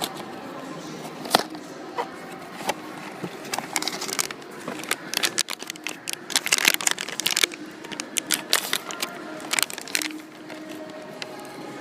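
Blind-box toy packaging being handled and opened: scattered clicks at first, then a dense run of crinkling and crackling in the middle, easing off near the end.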